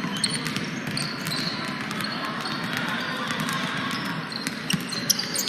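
A basketball bouncing on a gym floor during play, with short sharp knocks and squeaks over a steady background of gym noise.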